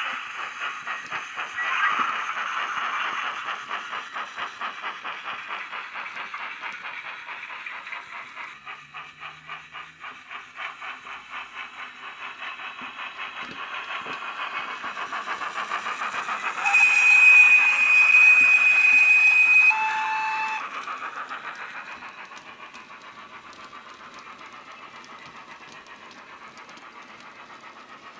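Wheeltappers DCC steam sound for a GWR 15XX pannier tank, playing from a LokSound micro decoder through the model's small built-in speaker. Exhaust beats chuff in a quick steady rhythm with hiss, and the whistle sounds one steady blast of about three seconds two-thirds of the way through. The sound then drops away as the locomotive moves off.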